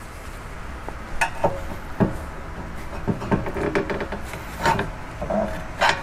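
Rear disc brake pad being pried and wiggled out of its caliper bracket with a screwdriver: metal scraping, with a few sharp metallic clicks and knocks against the caliper and pad springs. The pad is stuck against a worn lip.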